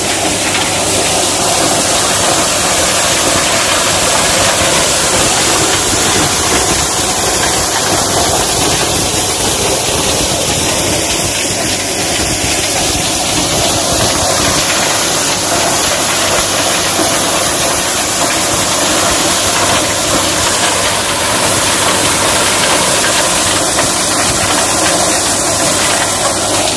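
A tractor and the corn thresher it drives, running steadily and loud: an even mechanical clatter and rush over the engine's steady hum.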